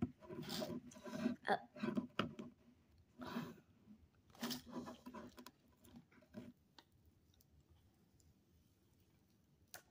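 Fingers handling a new Moto G Play phone and its plastic screen film: light clicks, taps and rustles over roughly the first six seconds, then near quiet with only a faint tick or two.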